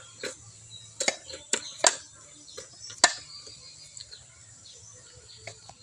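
Irregular clicks and knocks of a knife cutting slices off a peeled root held in the hand, the pieces dropping into a stainless steel bowl.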